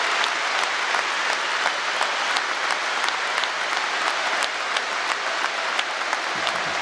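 Large stadium crowd applauding: dense, steady clapping with sharp individual claps standing out.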